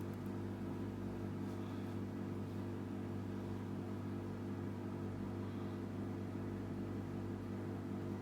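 Steady low mechanical hum at a constant pitch, like room ventilation or equipment running.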